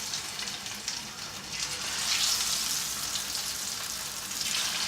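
Spice-and-corn-flour-coated fish pieces sizzling in hot oil in a pan, a dense hiss that swells louder about two seconds in and again near the end.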